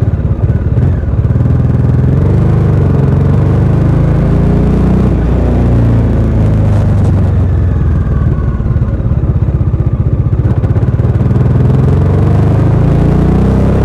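Bajaj Dominar 400 UG single-cylinder engine through its stock exhaust while riding, the engine note rising and falling with throttle: a rising rev about halfway, then another rising rev near the end.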